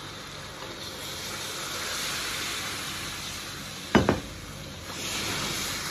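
Oil sizzling in a steel wok of frying diced winter melon and tomato as broth is poured in, the hiss swelling slightly and then settling into a steady simmering hiss. A single sharp metallic clank about four seconds in.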